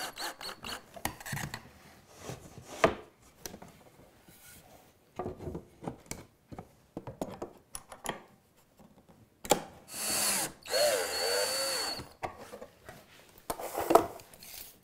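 Cordless drill driving a pocket screw into a plywood drawer corner for about two seconds, starting about ten seconds in, its motor whining and the pitch rising and falling as the screw seats. Around it come scattered clicks and knocks of the wooden drawer parts and metal clamps being handled, with one sharp knock near the end.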